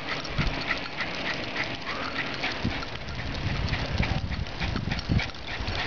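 A miniature pinscher's paws and claws clicking on asphalt, about three strides a second, as it runs beside a bicycle, over a steady low rumble of tyres and wind.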